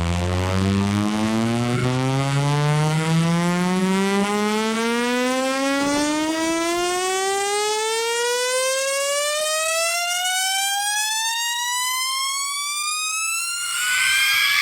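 Synthesized buzzy test tone sliding slowly and steadily upward in pitch from deep bass to a high tone, like a rising siren, as a speaker sound-check sweep. About a second before the end, a brighter, hissier layer joins it.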